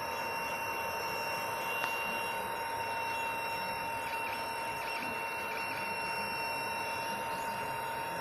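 3D printer running mid-print: a steady whine with two constant tones over an even fan-like hiss.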